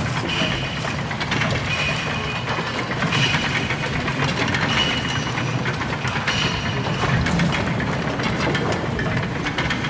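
Big Thunder Mountain mine-train roller coaster running along its track. There is a steady rumble and clatter of wheels on rail, with a high squeal coming back every second or two.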